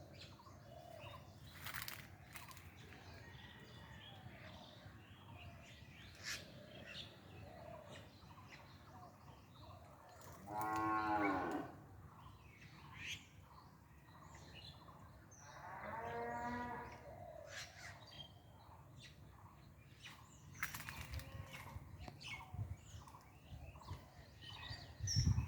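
A cow mooing twice, each call a second or two long, the second coming a few seconds after the first, over faint bird chirps and scattered clicks.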